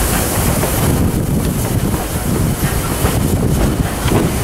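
A steam-hauled passenger train running along the track: a steady rumble of carriage wheels on the rails, with wind buffeting the microphone.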